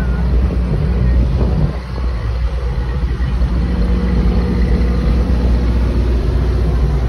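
A large truck's engine running at a steady idle, a low rumble.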